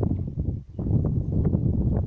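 Wind buffeting the microphone in uneven gusts, with a brief lull about half a second in.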